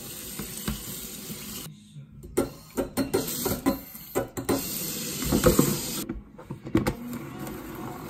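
Kitchen tap running into a stainless-steel sink as vegetables are rinsed in a plastic colander, with knocks and rattles of the colander being handled. The water sound breaks off briefly twice.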